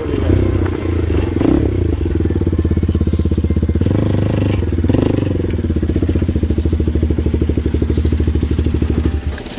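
Motorcycle engine running at idle with a rapid, even pulse, dropping away shortly before the end.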